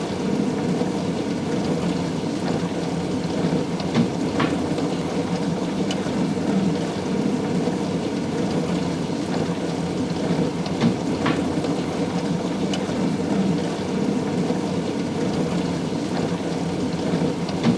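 Miele dishwasher running a wash program: a steady sound of water spraying and splashing inside the tub over the circulation pump, with a few faint clicks.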